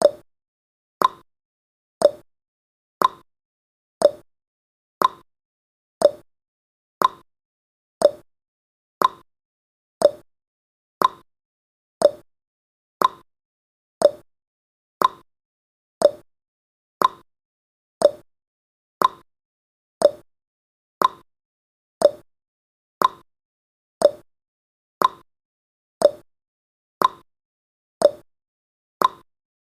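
Countdown timer's tick sound effect: one short, sharp tick each second, evenly spaced, with a brief ring after each tick.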